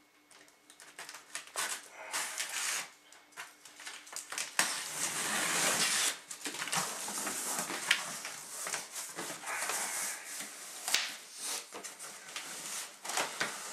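Packing tape being cut and torn from a cardboard shipping box, with a long rasping stretch about a third of the way in, then the cardboard flaps folded open with scattered knocks and rustles.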